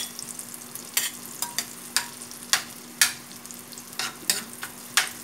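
Chopped garlic sizzling in melted butter and oil in a metal wok, being sautéed, while a spatula stirs it, scraping and knocking against the wok about ten times.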